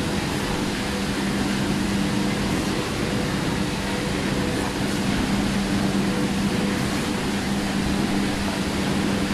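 Steady drone of running machinery: a constant low hum with a few held tones over an even rushing noise.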